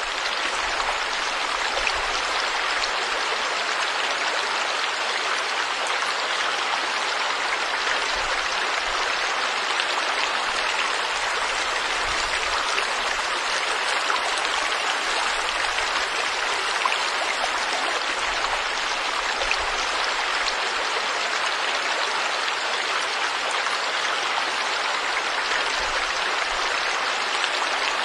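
Stream water flowing and splashing over rocks, a steady even rush with fine droplet splashes throughout.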